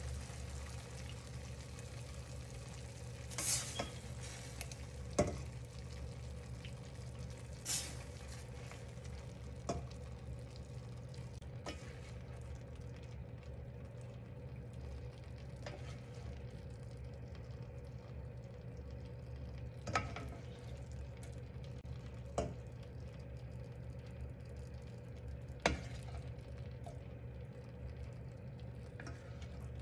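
Liquid in a stainless steel pan sizzling steadily and dying down as the pan cools after the heat is turned off, over a steady low hum. About eight short knocks and scrapes of a ladle against the pan as food is scooped out, the clearest at about 3.5, 8 and 20 seconds in.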